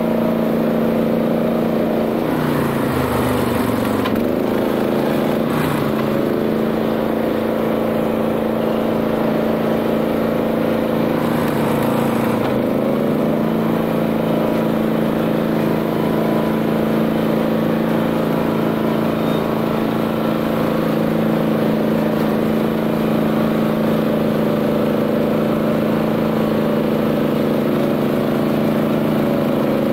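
Honda GX390 single-cylinder four-stroke engine of a BCS 740 two-wheel tractor running steadily with a flail mower engaged. Its pitch sags and recovers twice, a few seconds in and again a little before halfway.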